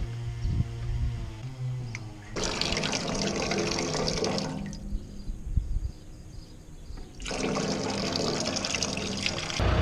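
Water rushing from a stock water trough's brass float valve in two spurts of about two seconds each, starting and stopping as the green float is pressed down and let up: the valve is being tested to see that it opens and shuts off. A few small knocks come before the first spurt.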